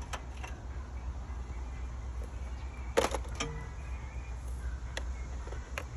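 A few sharp clicks and taps of handling, likely the voltmeter leads being set on the car battery's terminals, the loudest about halfway through, over a steady low hum.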